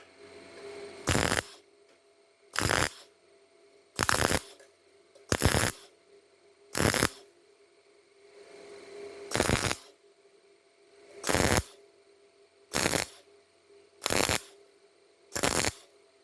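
MIG welding arc crackling in short bursts, ten of them, each well under half a second and roughly one and a half seconds apart: stitch or tack welding on galvanized steel. A faint steady hum runs between the bursts.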